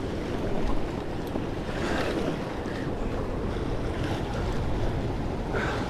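Ocean swell surging and washing over a rock ledge, with wind buffeting the microphone.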